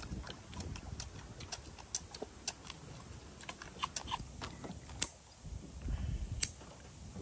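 Eating sounds: scattered sharp clicks and taps of chopsticks and duck bones against dishes, a few louder ones in the second half, over a low rumble of strong wind on the microphone.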